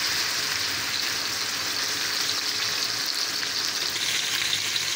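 Tied leg of lamb searing in hot vegetable oil in a cast-iron frying pan, being browned to a light golden crust: a steady, even sizzle of frying.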